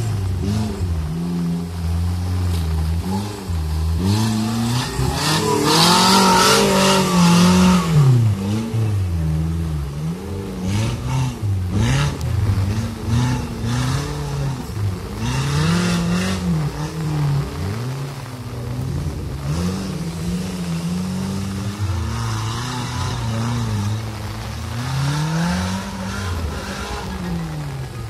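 Modified off-road 4x4's engine revving hard over and over, its pitch rising and falling as it claws up a muddy slope. It is loudest about four to eight seconds in, with a rush of noise over the engine, and there are a few sharp knocks near the middle.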